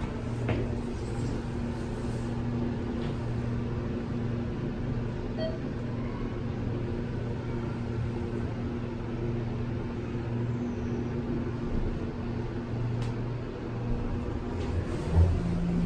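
Steady low mechanical hum, with a single thump near the end.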